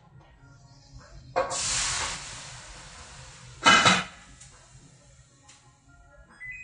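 Hot wok of steaming pumpkin giving a sudden hiss of steam about a second and a half in that fades over a second, then a second, louder and shorter burst near four seconds. Near the end a range-hood control beeps with a steady high tone.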